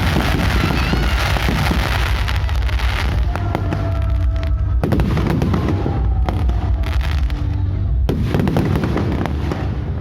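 Fireworks going off in quick succession: continuous deep booming and crackle, with sharp bangs about halfway through and again about eight seconds in.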